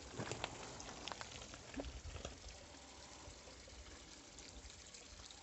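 Water trickling and splashing into a stone basin, a steady soft patter, with a few light clicks in the first two seconds.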